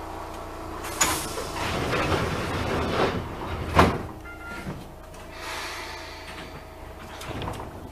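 Pneumatic sliding passenger doors of an Enshu Railway 1000-series electric train working: a rush of air begins about a second in, builds to a sharp knock near four seconds, and lighter knocks follow.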